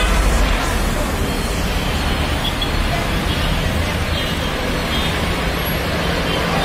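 Steady rumble of busy city road traffic: car, microbus and bus engines and tyres passing below.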